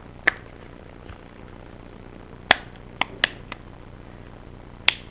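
Sharp plastic clicks from the HTC Desire's snap-fit back cover being worked open by hand: one click, then four in quick succession about two and a half to three and a half seconds in, and one more near the end.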